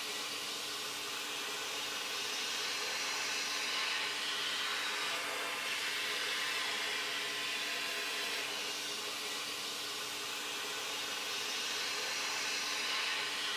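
Steady rushing hiss of machinery or moving air, with a faint steady hum underneath; it swells and eases gently a few times.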